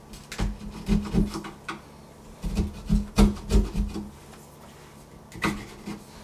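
Flat screwdriver scraping and prying wood out of a shallow latch-plate recess cut into a wooden door's edge: two runs of short scrapes and knocks, then one more knock near the end.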